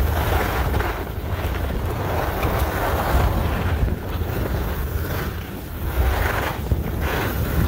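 Wind buffeting the microphone of a skier going downhill, with a steady low rumble, and the skis scraping over packed snow in a hiss that swells and fades with each turn.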